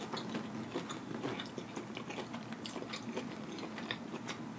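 A person chewing a mouthful of food, with many short clicks and smacks of the mouth.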